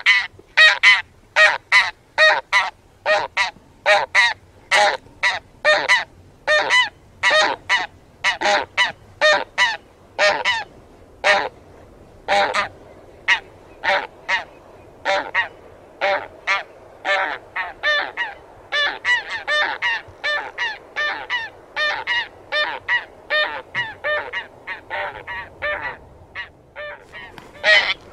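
A flock of taiga bean geese honking: a steady run of loud calls, about two a second at first, coming faster and overlapping in the second half.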